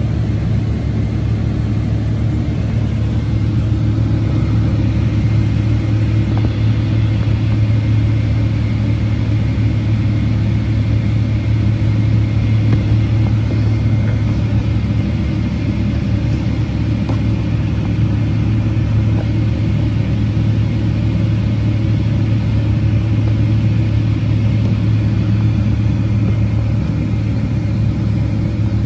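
Boeing 777-300ER cabin noise heard from a passenger seat: its GE90 engines and airflow make a steady, loud rumble with a faint thin whine above it.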